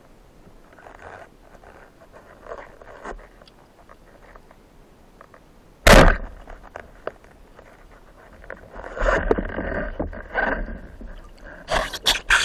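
Band-powered speargun fired underwater: one sharp, very loud crack about six seconds in. Around it, faint clicks and rustling of the gun and gear in the water, a longer stretch of scraping and rustling later, and a few sharp clicks near the end.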